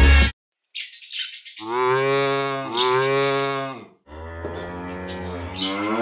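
A cow mooing twice in long, drawn-out moos, the second rising in pitch near its end.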